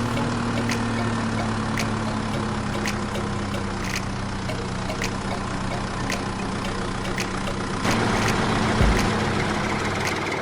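A motor running steadily with a low hum and a sharp click about once a second; it turns noisier about eight seconds in.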